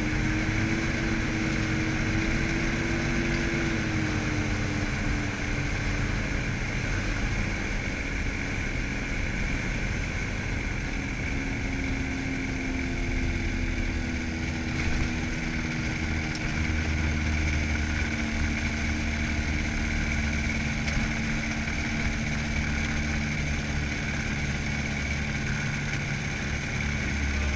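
Rans S12 ultralight's engine and propeller running at reduced power, heard inside the open cockpit with steady wind noise, during the landing approach, touchdown and rollout. The engine note steps down in pitch a few seconds in and again about twelve seconds in.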